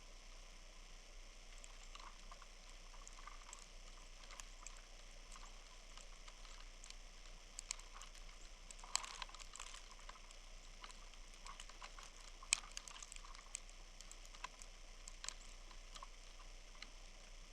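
Faint steady hiss with scattered, irregular small clicks and ticks, a few sharper ones about nine and twelve and a half seconds in.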